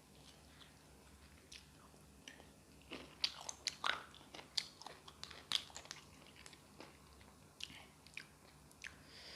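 A person chewing and biting food close to the microphone, with wet mouth clicks and smacks, coming thickest about three to six seconds in.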